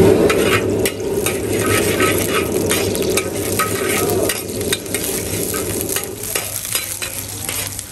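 Shredded cabbage sizzling in hot oil in a wok while a metal ladle stirs and scrapes it, with frequent clicks of the ladle against the wok. The sizzle is strongest for the first four seconds or so, then eases, over a steady low hum.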